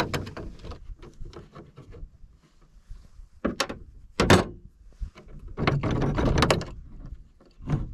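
Metal clinks and plastic knocks from unfastening the lid of a plastic rooftop cargo box with a screwdriver. Two sharp loud knocks come a few seconds in, followed by a cluster of rattling clicks.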